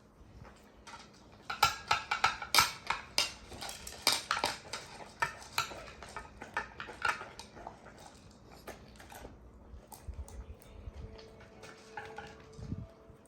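Chocolate Labrador retriever eating from a dish, with rapid clinks and rattles of the dish that come thickest in the first half and thin out later.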